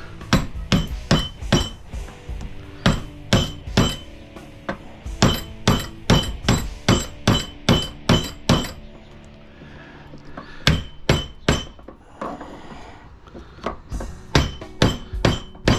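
Hammer striking a screwdriver used as a punch, driving a copper winding out of a light-fixture transformer's steel core held in a vise. The winding is held fast by shellac. Sharp metal-on-metal blows come in several quick runs of three to nine, each with a short high ring.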